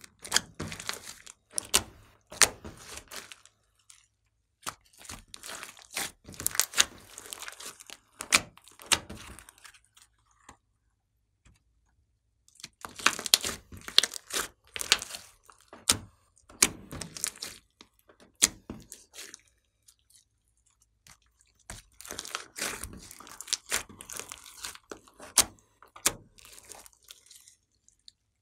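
Hands pressing, squeezing and stretching a large mass of glossy slime. It gives sticky crackles, clicks and squelches in bursts, with two short pauses.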